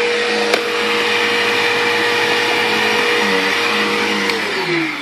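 A 2005 Bissell PowerTrak Revolution upright vacuum cleaner's motor running with a steady whine, then shut off near the end, its pitch sliding down as the motor winds down.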